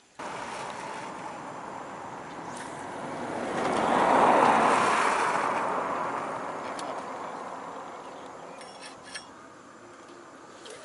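A passing vehicle: a rushing noise that swells to a peak about four seconds in and then slowly fades away, with a few light clicks near the end.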